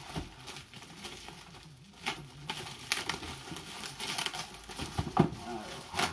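Plastic packaging film rustling and crinkling as plastic-wrapped exhaust link pipes are handled in a cardboard box, with scattered sharp crackles.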